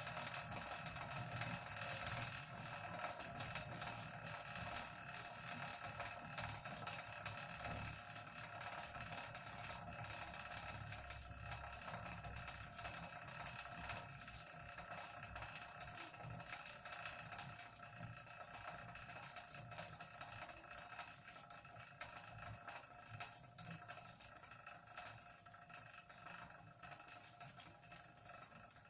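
Spin bike flywheel turning, with a steady whine of several tones over fine rapid ticking and a low rumble, growing gradually quieter. This is the wheel noise the bike is being checked for.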